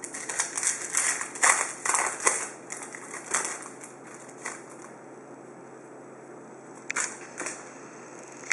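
Foil trading-card pack wrapper crinkling and tearing as it is ripped open by hand, a dense run of crackles over the first three and a half seconds. A couple of brief rustles follow about seven seconds in as the cards are handled.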